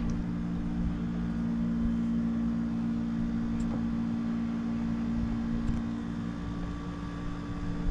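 Panasonic air conditioner running with a steady, even hum.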